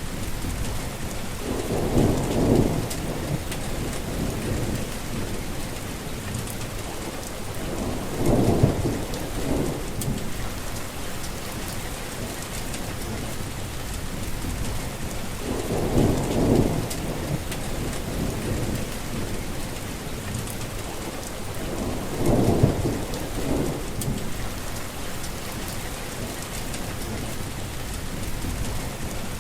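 Heavy rain falling steadily, with four low rumbles of thunder swelling and fading, each lasting a couple of seconds.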